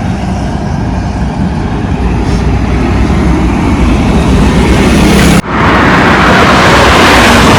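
Wind rushing over the microphone, with road and engine noise, from a KTM Duke 390 motorcycle riding at highway speed. The sound breaks off abruptly about five seconds in and comes back louder.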